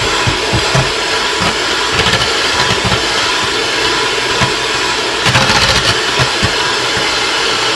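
Electric hand mixer running steadily, its beaters whipping egg whites and egg white powder in a stainless steel bowl. A brief clatter comes about five seconds in.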